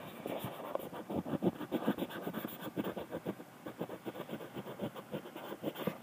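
Handling noise from the recording phone: fingers rubbing and scratching on its body near the microphone, a fast irregular run of small scratchy clicks.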